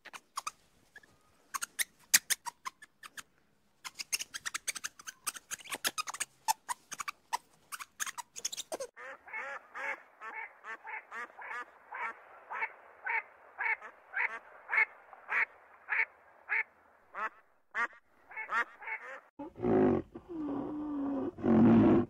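Muscovy duck calling over and over in short calls, about two a second, after a run of rapid sharp clicks. Near the end comes a louder, deeper animal sound.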